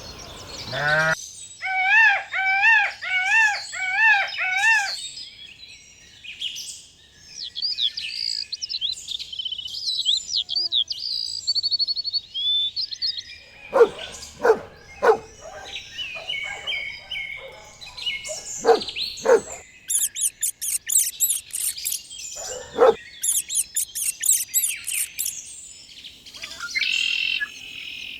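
Songbirds calling and singing: a wavy call repeated about five times, then varied whistles and chirps, sharp call notes, and fast high-pitched trills near the end.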